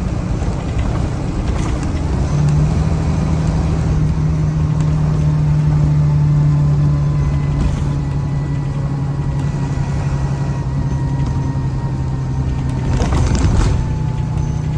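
2013 Blue Bird All American school bus running, its engine a steady drone from about two seconds in, with a brief rush of noise near the end.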